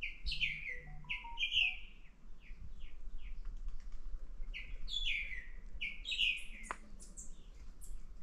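A songbird singing in two phrases of quick chirps, each sweeping downward. The first phrase is at the start and the second comes about four and a half seconds in.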